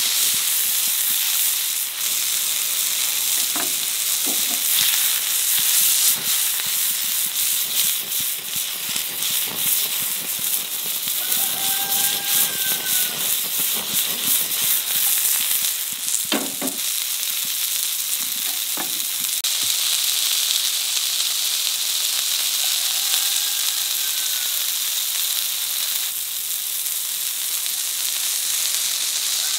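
Chicken patties sizzling in hot oil in a nonstick frying pan over a gas burner, a steady hiss. A few sharp knocks sound around three to four seconds in and again around sixteen to nineteen seconds in.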